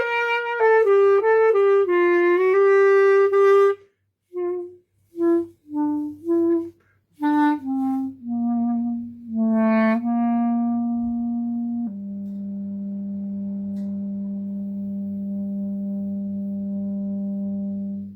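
A solo instrumental melody, one note at a time, stepping downward in pitch through a phrase. It ends on a long, steady low note held for about six seconds, then stops.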